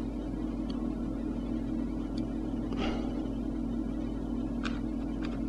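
Steady electrical hum and background noise from a desktop recording setup, with a few faint, sparse computer keyboard clicks.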